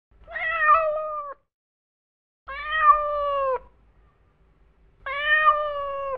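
A cat meowing three times, each meow about a second long with short silent gaps between.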